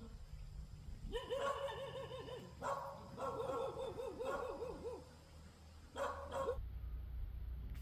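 A dog whining in long, quickly wavering whines with a short break between them, then one brief whine near the end.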